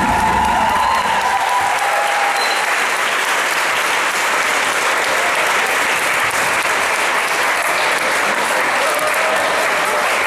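Audience applauding steadily, as the last of the routine's music fades out in the first second or so.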